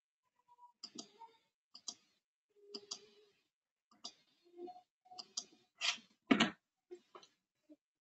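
Computer mouse clicking: about a dozen short, sharp clicks at uneven spacing, roughly one a second, the loudest about six seconds in.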